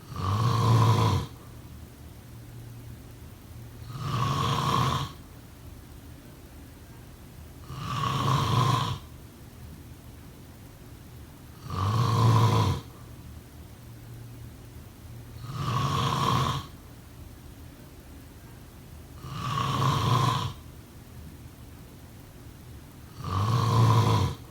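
Steady, rhythmic snoring: seven even snores about four seconds apart, each lasting about a second, with a faint steady background hum between them.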